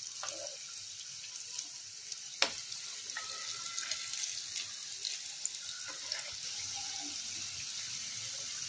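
Potato smileys deep-frying in hot oil: a steady sizzling hiss, with a few light clinks of a steel spoon against the pan as they are turned, the sharpest about two and a half seconds in.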